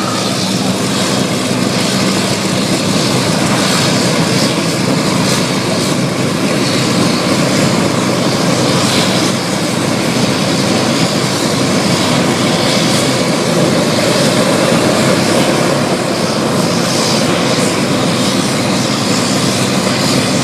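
Propeller airplane engine running loud and steady as the aircraft flies past, swelling and easing slightly.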